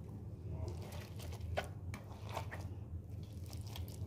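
Boiled cauliflower florets being mashed by hand, with soft squishing and a scatter of brief crunches as the florets break apart.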